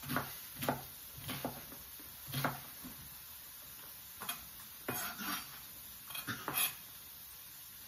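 A chef's knife chopping an onion on a cutting board: single knocks at an uneven pace, about nine in all, with a pause in the middle and the chopping stopping a little before the end.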